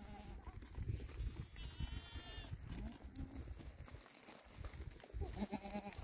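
Goat bleating: one high, quavering call about two seconds in, over a steady low rumble.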